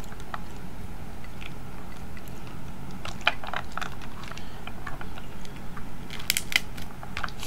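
Snow crab leg shells cracking and crunching as they are bent and snapped apart by hand, shells that aren't cracking cleanly. A few scattered cracks, a cluster about three seconds in, and the loudest burst of crackles about six seconds in.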